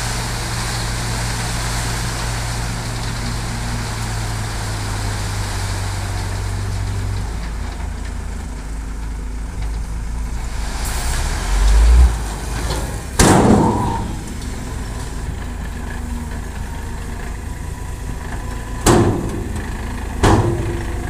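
Hino dump truck's diesel engine running steadily while its tipper bed unloads gravel; a steady low hum in the engine note drops away about seven seconds in. Loud bangs come twice around twelve to thirteen seconds in and twice more near the end.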